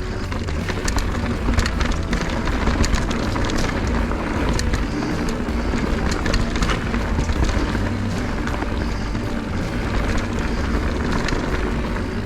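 Mountain bike riding fast downhill on a dirt trail: a steady wind rumble on the microphone, with tyre noise and frequent rattles and clicks from the bike over rough ground. Background music plays underneath.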